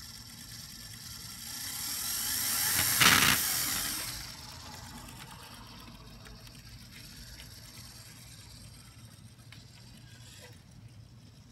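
HO-scale model diesel locomotives running on track, their motors giving a steady low hum with light clicking from the wheels and rail joints. A loud rush of hiss swells up, peaks about three seconds in, and fades a second or so later.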